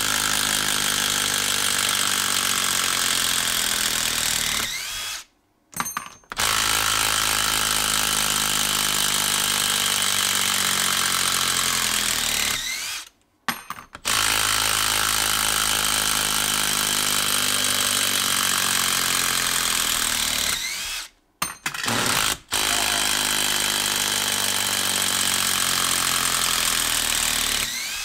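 Makita 18V brushless impact driver hammering as it backs four long screws out of a log one after another: four runs of about six to seven seconds each, with short breaks as the bit is moved to the next screw.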